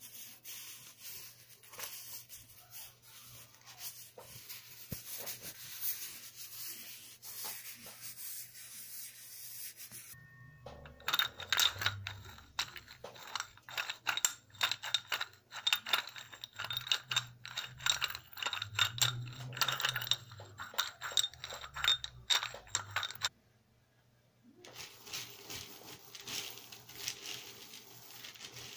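Close-up crackling, scraping and rubbing of household objects, made to stand in for sounds inside a cell. Soft and crackly at first, much denser and louder with many sharp clicks from about ten seconds in, then a brief silence and a quieter rustle near the end.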